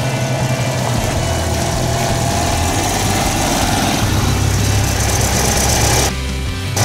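Citroën 2CV's small air-cooled two-cylinder engine idling steadily, dropping out for a moment a little after six seconds in.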